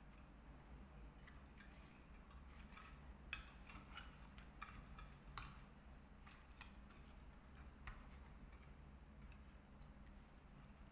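Faint, scattered clicks and soft wet taps of hands rubbing and turning raw whole fish in a glass baking dish, over a low steady hum.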